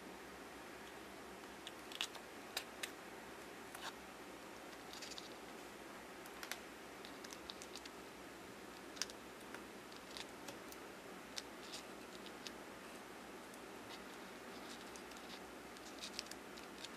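Irregular faint clicks, taps and scratches of fingers handling small paper boxes and clay pieces, over a steady hiss. The sharpest clicks come about two seconds in and near the middle.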